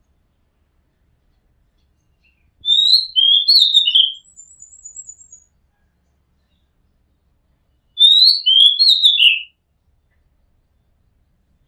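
Oriental magpie-robin singing: two short phrases of clear whistled notes that slide down in pitch, about five seconds apart. A faint, high, rapid trill follows the first phrase.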